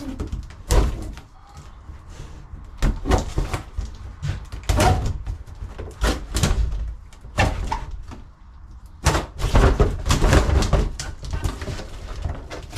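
A blunt knife slitting packing tape and cardboard along a long box, with irregular scrapes and thumps as the box is handled, busiest near the end.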